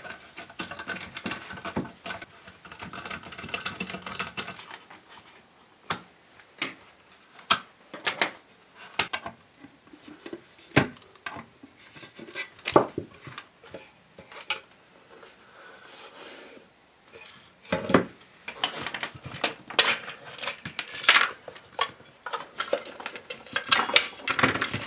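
Irregular clicks, knocks and clatter of plastic and metal as a pair of Altec Lansing desktop speakers is taken apart by hand with a screwdriver and side cutters.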